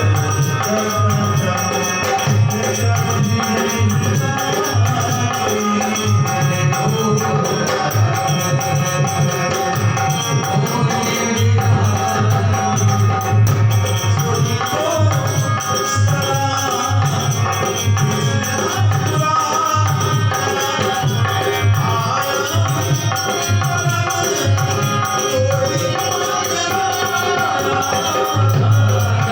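Dholak drumming a steady, fast rhythm, its deep bass strokes under a melodic accompaniment, with jingling percussion.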